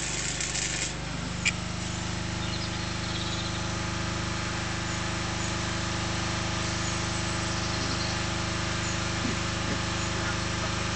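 An engine running steadily at idle, a constant hum. A hiss in the first second cuts off, and a single sharp click comes about a second and a half in.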